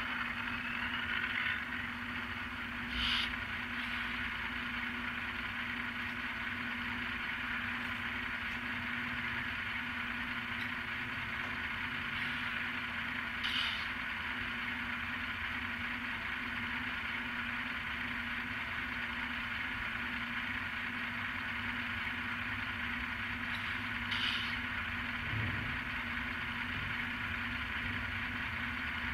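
Sound-decoder recording of a GE Tier 4 GEVO diesel idling, played through the small speaker of N-scale ET44AC model locomotives: a steady low hum under a constant hiss. Three short, brighter hisses come about ten seconds apart.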